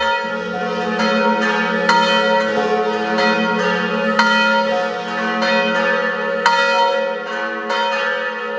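Church bells ringing in a full peal, many overlapping strikes each ringing on, starting abruptly.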